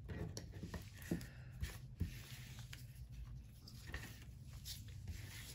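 Faint rustles and light ticks of small transparent plastic feather stickers being picked up and shuffled by fingers on a tabletop, over a low steady hum.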